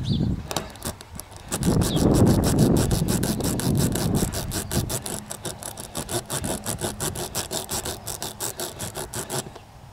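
Steel spiral reamer being forced in and out of a puncture hole in a run-flat car tire's rubber tread, rasping with a fast, even rhythm and a heavier rubbing stretch a couple of seconds in. This is the hole being reamed out to clean it for a tire plug.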